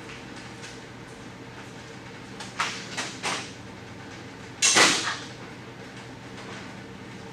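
Hand tools being rummaged through while searching for a wrench: three short scraping clatters, then a louder, longer scrape-and-rattle about two-thirds of the way in, over a steady low hum.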